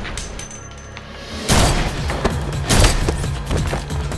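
Film soundtrack: a tense music score with pistol gunshots, a burst of rapid shots and impacts starting about one and a half seconds in.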